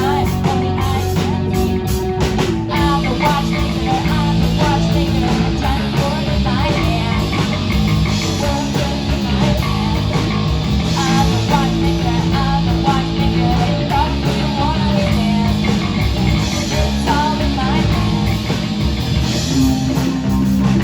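Rock band playing live: loud, continuous guitar-driven rock music.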